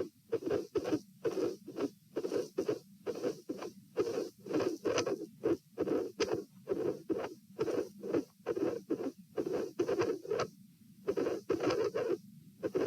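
Heart sounds heard through a stethoscope at the pulmonic position: a continuous run of short thudding beats at about 66 to 72 beats a minute, with a brief lull about ten and a half seconds in. It is a heart with a dilated aortic root, recorded with an irregular rhythm, mid-systolic murmurs and a cyclic extra sound at the second heart sound.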